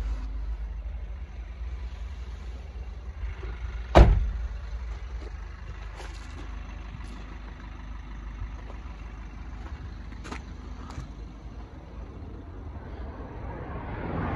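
A van door slamming shut once, a sharp thump about four seconds in, over a steady low rumble. A few light clicks follow.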